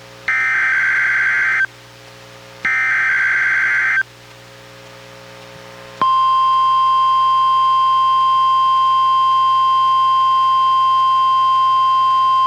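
NOAA Weather Radio emergency alert played through a Reecom R-1630 weather radio's speaker: two harsh digital SAME header bursts, each over a second long and a second apart, then about six seconds in the steady 1050 Hz NWR warning alarm tone starts and holds, sounded here as a weekly test.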